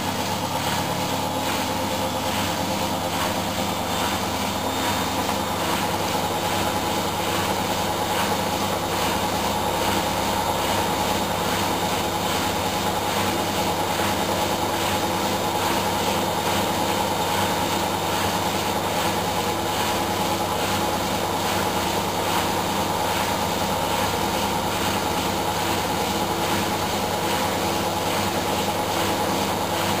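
Candy GO4 1274 LH front-loading washing machine spinning at 800 rpm: a steady, even whine over a low hum and rushing noise as the drum turns at constant speed.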